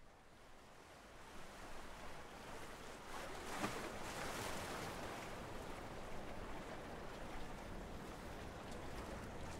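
Ocean waves washing, fading in from silence, with a louder wash about three and a half seconds in.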